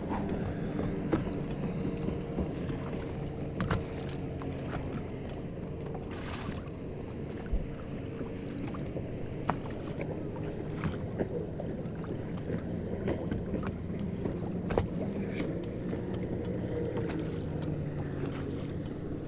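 Electric trolling motor humming steadily, holding the boat in position, with a few light ticks and knocks against the boat.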